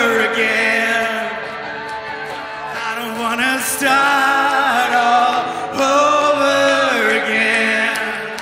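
Live band playing, with electric guitar, while a male voice sings long held notes of a pop-rock song.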